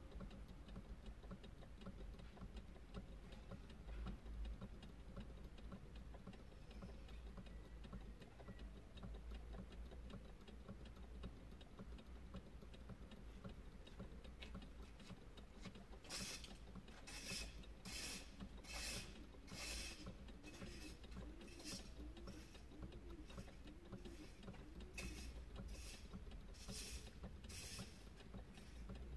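Faint, steady mechanical ticking from a dashboard solar-powered dancing figurine rocking back and forth. From about halfway, a run of short hissy rustles comes at roughly one or two a second.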